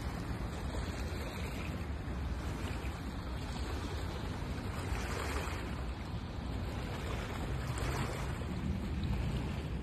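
Wind buffeting an outdoor microphone: a steady low rumble under a hiss that swells twice, about five and eight seconds in.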